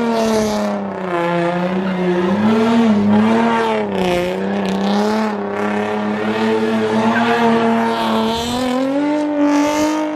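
Nissan 350Z's V6 held at high revs as the car spins donuts, its note wavering up and down with the throttle, dipping about four seconds in and climbing again near the end, over the hiss and squeal of the spinning rear tyres.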